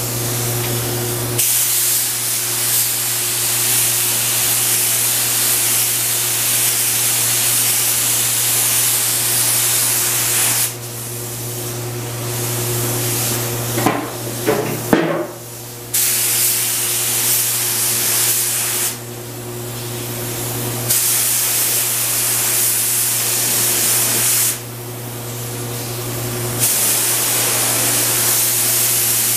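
Compressed-air gravity-feed spray gun spraying paint, a loud hiss in long passes of several seconds broken by short pauses when the trigger is released. A steady low hum runs underneath.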